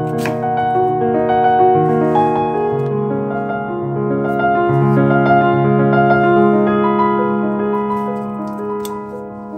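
Background piano music: a slow melody of held notes over a sustained low note, growing quieter in the last few seconds.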